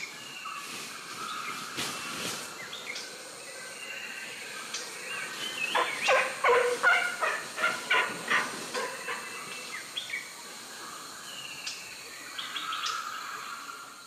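Forest ambience with birds calling. Near the middle comes a quick run of loud repeated calls, several a second, and scattered shorter chirps are heard before and after it.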